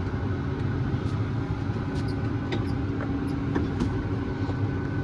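Farm tractor engine running steadily, heard from inside the cab: a low drone with a steady whine over it.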